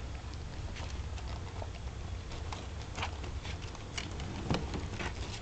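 Soft rustling and a few faint clicks as newborn puppies are handled, over a low steady hum.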